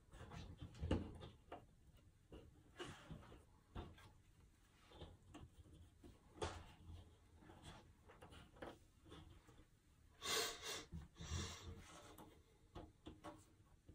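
Paperboard jigsaw puzzle pieces being slid, tapped and pressed together on a tabletop by hand: faint scattered clicks and rustles, with a louder rustle about ten seconds in.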